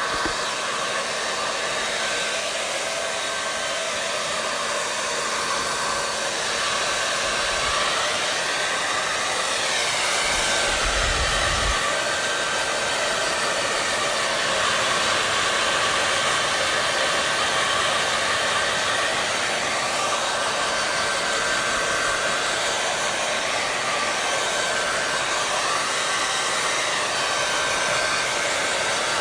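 Hair dryer running continuously: a steady blowing hiss with a faint whine, its tone swelling gently a couple of times. There is a brief low bump about eleven seconds in.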